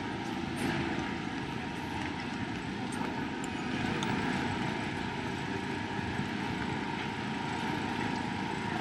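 Steady city street noise, the constant hum of traffic going by.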